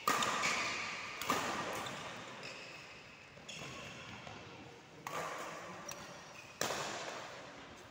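Badminton rally: four sharp racket hits on the shuttlecock, each ringing out in the echo of a large hall, with sneakers squeaking on the court between them.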